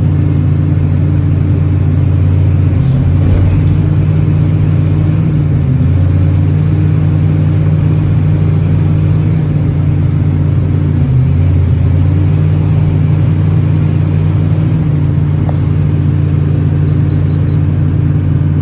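Kobelco 380-10 excavator's diesel engine running steadily at a constant speed, a loud, even low hum.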